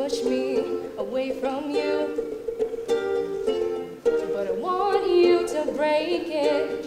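A woman singing a slow melody over a strummed ukulele.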